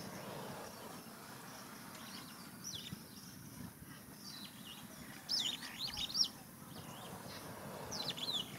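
Small wild birds calling: clusters of short, high chirps, many sliding down in pitch, loudest in a quick run about five to six seconds in and again near the end.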